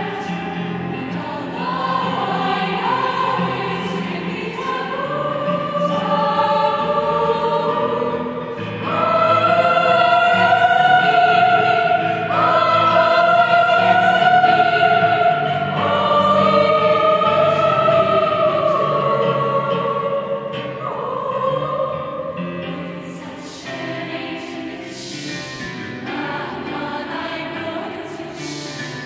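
A girls' choir singing sustained chords that shift every few seconds, swelling to its loudest in the middle and growing softer near the end.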